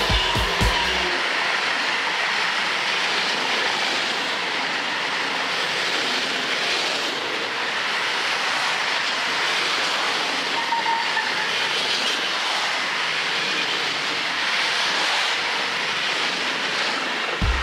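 A long freight train of lorries on low flat wagons rolling past close by. Its wheels on the rails make a steady rushing rumble that doesn't let up.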